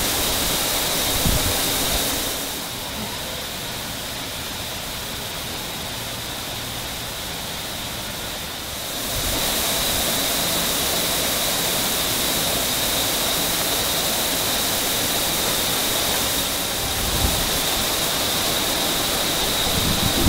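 Steady noise of industrial plant equipment: an even hiss with a constant high whine over it. It drops quieter about two seconds in and comes back up about nine seconds in.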